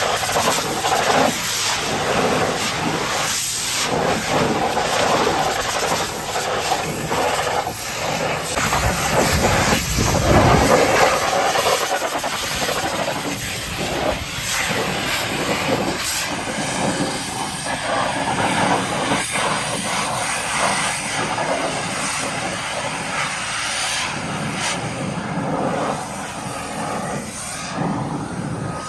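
Pressure washer spraying a surface: a steady, loud hiss of the water jet that rises and falls a little as the wand moves.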